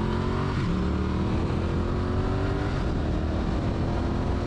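Triumph Street Twin's 900 cc parallel-twin engine pulling under acceleration, its pitch climbing and dipping briefly at upshifts, once just after the start and again about three seconds in. Wind rushing over the microphone at road speed.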